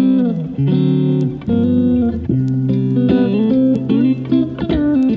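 Background music: plucked guitar playing a run of notes over a bass line.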